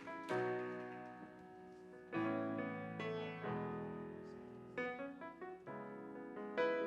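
Piano playing slow, sustained chords, a new chord struck every second or two, with a short flurry of quicker notes about five seconds in.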